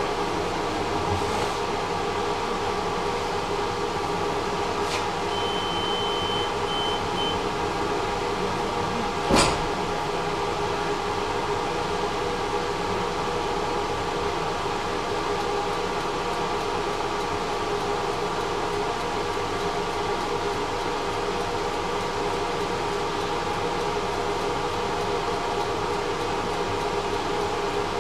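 Steady running noise of a tram heard on board, with a constant electric hum. A short high beep sounds about five seconds in, and a single sharp knock about nine seconds in is the loudest moment.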